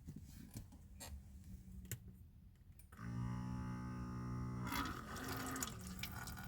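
Battery-powered water pump of a camper van's fresh-water system switching on about three seconds in with a steady buzzing hum, then water running and splashing out of the tap as the jug is pumped out.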